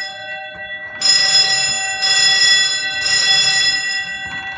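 Fire alarm ringing loudly in steady, high ringing tones, weak for the first second, then coming in at full strength about a second in and dropping out briefly near the end.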